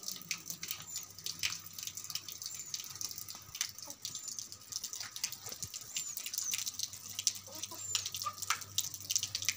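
Water running from an outdoor tap and splashing onto a wet concrete slab while a puppy is washed under it, with irregular splashes and drips.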